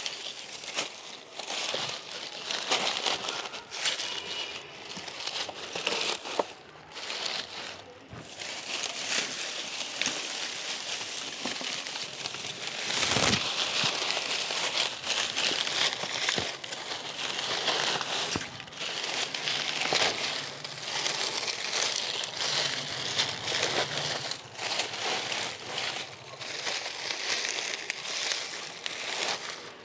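Dry leaves crackling and crunching as they are crumpled and handled, a continuous stream of crisp rustles.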